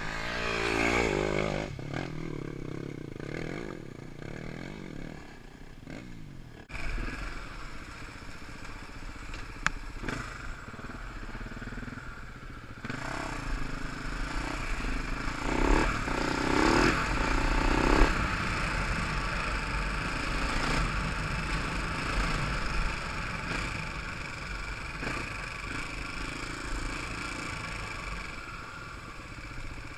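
Enduro dirt bike engine. In the first seconds a bike rises in pitch as it comes closer. After a cut about seven seconds in, the engine is heard close up from the rider's helmet camera, revving up and down continuously with a few knocks and rattles from the bike, loudest about two thirds of the way through.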